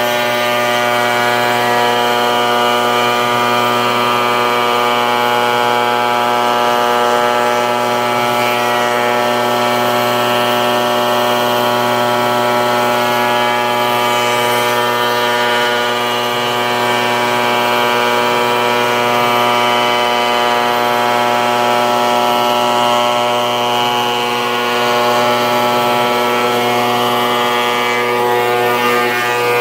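Shop Fox molder running steadily with a loud, unchanging whine of many tones as its cutterhead mills a profile into a circular wood blank that is turned slowly under it.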